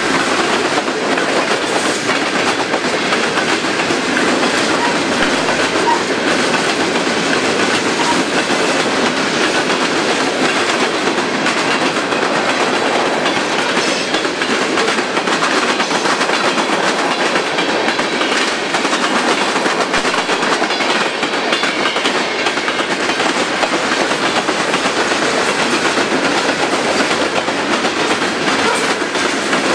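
A long freight train of coal gondolas, boxcars, tank cars and covered hoppers rolling past at speed: the steady noise of steel wheels on the rails, with a faint rhythmic clicking from the wheels crossing the rail joints.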